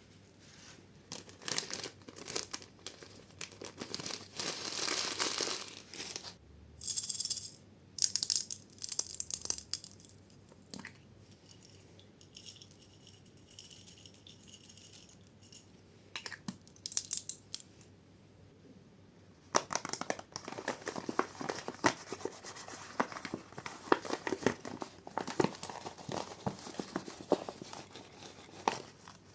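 Slime being squeezed, stretched and mixed by hand, with dense sticky clicks, pops and crackles. The sound comes in bursts for the first several seconds, goes quieter in the middle, and turns busy again from about twenty seconds in.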